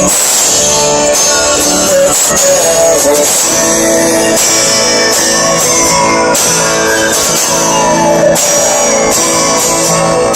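A song with guitar played loud through a truck's aftermarket car stereo: a Boss Audio head unit driving door and dash speakers from JL Audio amplifiers.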